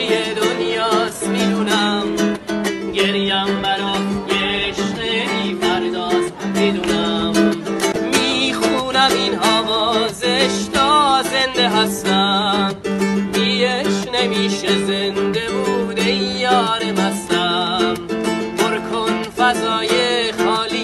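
A man singing a slow song with a wavering, vibrato-laden voice while strumming a small acoustic guitar.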